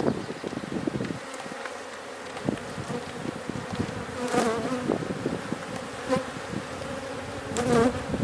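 Honey bees buzzing around an open hive during a frame inspection, a steady hum. Twice, about four and a half seconds in and again near the end, a bee flies close past, and its buzz swells louder and wavers in pitch.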